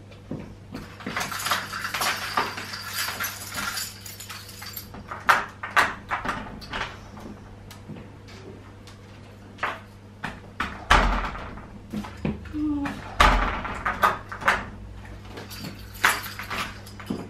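Household handling noises: rustling, then a run of clicks and knocks with two heavier thumps in the second half, as a delivered takeaway meal is fetched and unpacked.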